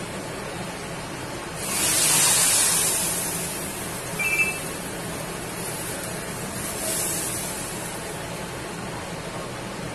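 Baghar (tadka) of hot oil with fried onion, curry leaves and spices poured into a pot of kadhi, hissing and sizzling loudly for about two seconds before dying down, with a second, smaller sizzle a few seconds later as the rest is scraped in. A brief squeak comes about four seconds in.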